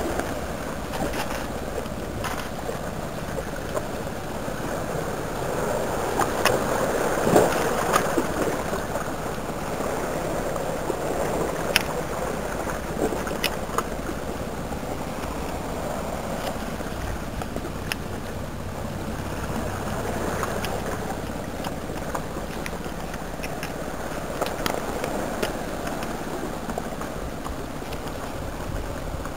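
Sea water washing and gurgling among shoreline rocks and pebbles, swelling louder about a quarter of the way in, with scattered small clicks.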